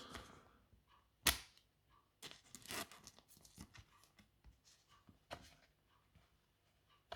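Plastic card sleeve handled as a Pokémon card is slid into it: one sharp plastic snap about a second in, then scattered faint crinkles and clicks.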